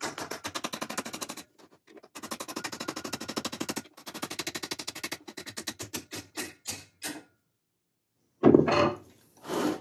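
Hammer striking steel welding vise grips clamped on a VW Mk1 steering shaft, driving the steering column bearing race off the shaft. Three quick runs of many light taps, then slower single taps, and two louder knocks near the end.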